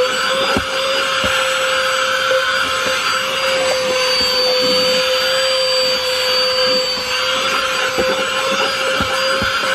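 Vacuum cleaner with its small brush attachment running at a steady pitch while vacuuming a car's interior, with a few light knocks of the nozzle against surfaces.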